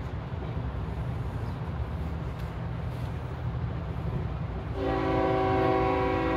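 An approaching CSX freight locomotive's air horn starts sounding about five seconds in, a held chord of several notes, over a steady low rumble.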